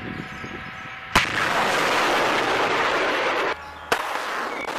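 A salvo from truck-mounted multiple rocket launchers: a sharp bang about a second in, then the loud, steady rushing noise of rockets launching. It breaks off briefly and starts again near the end.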